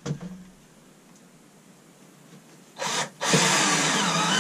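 Cordless drill driving a 1¼-inch deck screw up through a 7/16-inch OSB ceiling panel into the wooden roof strapping. A short burst of the drill about three seconds in, a brief pause, then a longer steady run.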